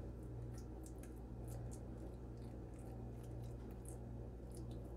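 Faint soft squishing and light clicks of a metal spoon spreading a ricotta cheese mixture over lasagna noodles in a glass baking dish, over a steady low hum.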